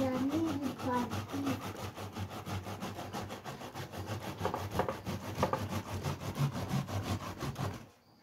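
Tomatoes being grated on a stainless-steel box grater into a plastic bowl: quick, repeated scraping strokes of the fruit against the metal holes, stopping abruptly near the end.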